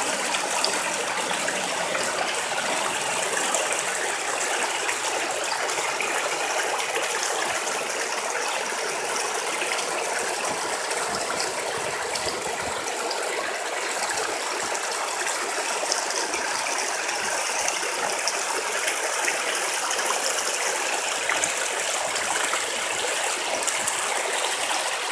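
Stream water flowing and splashing: a steady, even rush with fine crackling splashes.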